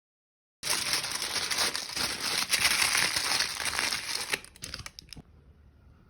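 Loud crumpling and crinkling, as of paper or packaging being scrunched, for about four seconds, thinning to a few scattered crackles before it stops.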